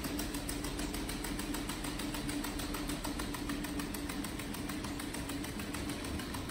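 Mini Cheetah quadruped robot's electric leg motors running as it stands and steps on foam mats: a steady hum with a fast, even ticking.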